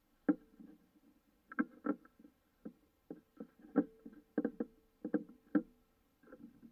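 Plastic spring clamps knocking and clicking against a small wooden block and the workbench as they are fitted onto a freshly glued block: about a dozen sharp, hollow knocks at uneven intervals, a few followed by a brief ring.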